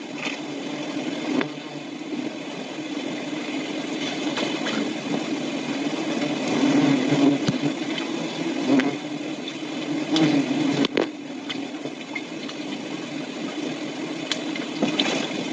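Honeybee swarm buzzing as a dense, steady hum that swells and fades, with a few sharp clicks.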